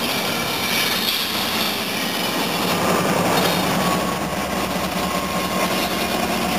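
An Amtrak passenger train rolls slowly past: the stainless-steel coaches go by, then the GE P42DC diesel locomotive at the rear draws alongside with its engine running. In the second half a steady engine drone rises over the rolling of the cars.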